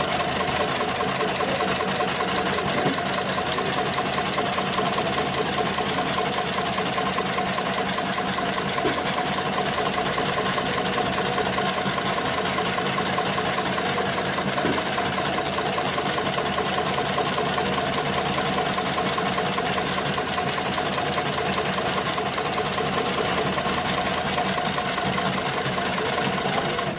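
Industrial programmable pattern sewing machine stitching through thick nylon safety-harness webbing, running steadily with a rapid, even needle rhythm.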